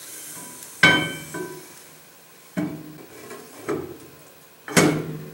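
Steel rear axle shaft of a Dodge Ram 1500 being slid into the axle housing, knocking metal on metal four times as it goes in. The first and last knocks are the loudest, the first with a short metallic ring.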